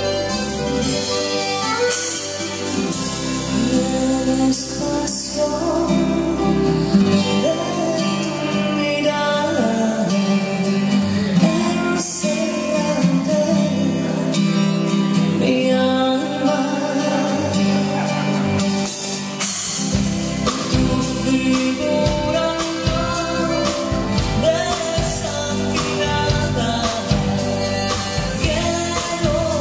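Live song: a woman singing over a strummed acoustic guitar, with a piano accordion in the band. The bass fills out about twenty seconds in.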